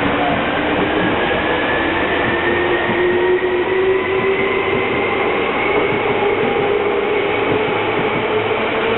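Seibu 101-series electric train pulling out of a station: its traction motors whine in several pitches that slowly rise as it gathers speed, over steady rolling noise from the wheels and rails.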